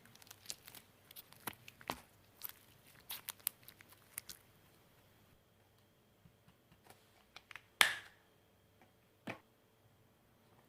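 Green slime being pressed and drawn in with the fingers, giving scattered sticky clicks and pops: a quick cluster over the first few seconds, then a few sparser ones, the loudest a sharp pop about eight seconds in.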